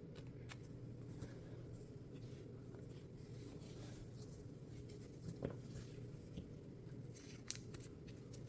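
Faint, scattered clicks and light handling sounds of trading cards and booster-pack foil being handled, over a low steady hum.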